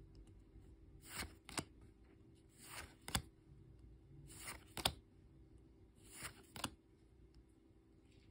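Pokémon trading cards being flipped through one at a time, each card slid off the front of the stack with a soft swish and tucked onto the back with a sharp snap. This happens four times, about every second and a half to two seconds.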